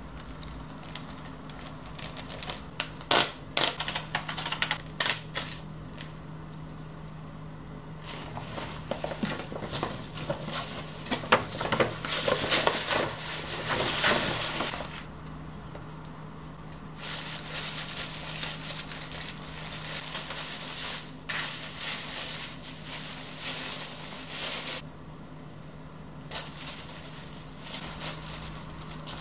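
Tissue paper and a paper mailer bag rustling and crinkling as clothes are unpacked and handled, in irregular bursts with short pauses, over a steady low hum.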